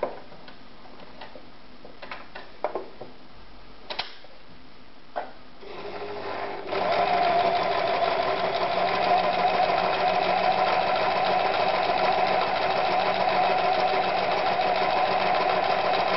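Privileg Super Automatik 5021 domestic sewing machine sewing stretch knit fabric. A few light clicks come first. About six seconds in the machine starts and then runs at a steady speed: a fast, even clatter of needle and feed over a steady motor hum.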